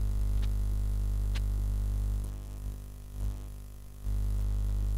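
Steady electrical mains hum with a buzzy row of overtones. It drops away for about two seconds midway, then comes back. A couple of faint clicks come in the first second and a half.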